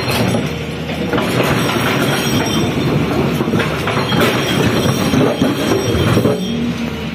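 Excavator working at demolition: the engine runs under load amid continuous grinding, scraping and irregular clanking of metal against the structure.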